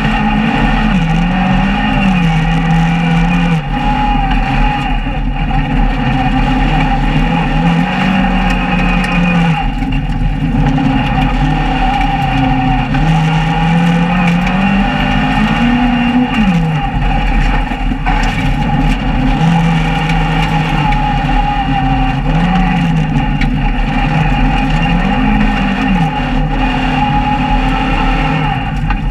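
Opel Astra GSi rally car's engine heard from inside the caged cabin at full attack on a gravel stage. The engine note climbs under acceleration, then falls away at each gear change or lift, over and over, with steady road and tyre noise from the loose surface underneath.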